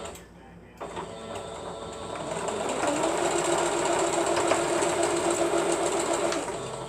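Sewing machine stitching: the motor starts about a second in, speeds up and runs steadily, then slows near the end.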